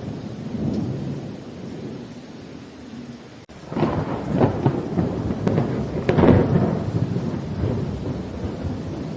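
Thunderstorm with rain: a low, steady rumble of thunder, then about three and a half seconds in a sudden crackling peal breaks out. It is loudest about six seconds in and rolls back down into rumbling.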